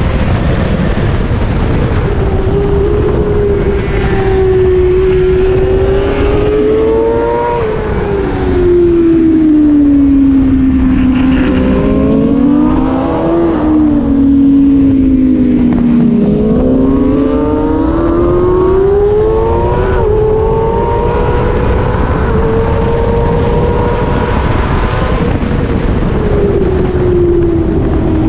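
Kawasaki ZX6R inline-four sport bike engine running hard at high revs, its pitch holding high, sagging slowly for several seconds in the middle, then climbing back with a few small jumps before falling again near the end. Heavy steady rush of wind noise underneath.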